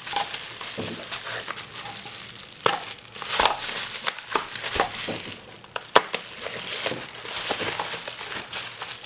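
Plastic packaging crinkling and rustling as it is handled, with many small clicks and knocks.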